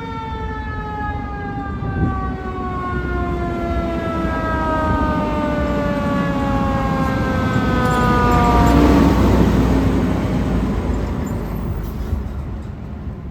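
Fire engine siren winding down in a slow, steadily falling wail that dies out about nine seconds in. Meanwhile the truck's engine noise swells, is loudest as the siren fades, then eases off as the truck passes.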